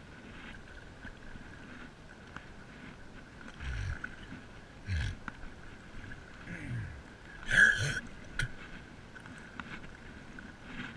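Paddle strokes from a stand-up paddleboard, the blade pulling through the water in four strokes about a second and a half apart, starting about a third of the way in. The stroke a little past the middle is sharper and is the loudest sound.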